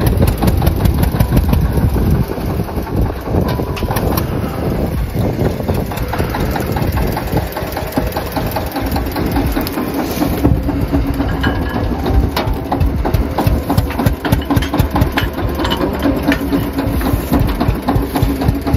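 Farm tractor's diesel engine running steadily, left idling to warm up. A steadier hum joins the rumble about halfway through.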